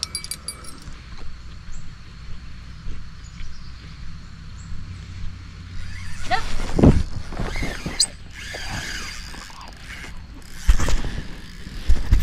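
Handling noise from the camera being gripped and moved: rustling from about six seconds in, then several loud bumps near the end, over a low steady rumble of wind on the microphone.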